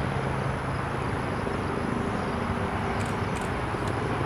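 Freight train of covered hopper cars rolling past, a steady rumble with a few faint ticks about three seconds in.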